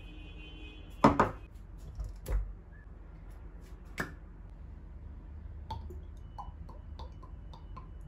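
Kitchenware handled on a wooden countertop: a few knocks in the first seconds, then a glass tumbler set down with a sharp click about four seconds in. Near the end comes a run of light, regular ticks as a plastic bottle of vegetable oil is opened and poured into the glass.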